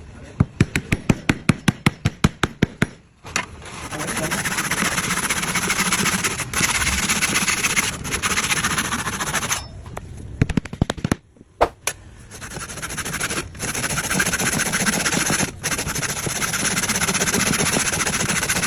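Workshop tool noise on wood: a fast run of sharp clicks, about seven a second, then two long stretches of steady machine noise with a few knocks in a short pause between them.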